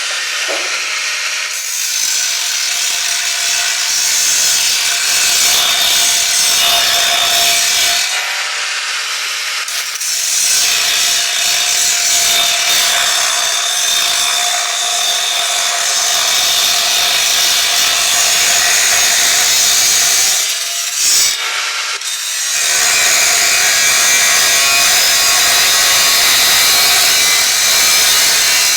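A power tool running in long, steady stretches, with a high hissing, abrasive sound and two short pauses.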